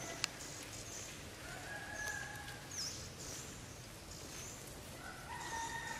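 Faint outdoor birdsong: repeated short high chirps and a few longer, steadier calls, with a single sharp click about a quarter of a second in.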